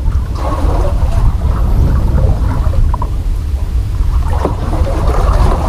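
Wind rumbling on the microphone, with water sloshing and gurgling against the side of a small boat.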